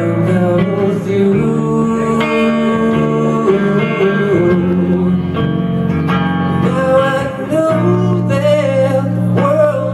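Live solo music: an acoustic guitar played flat across the lap, both hands picking and tapping on the neck, with a man singing held, sliding notes over it.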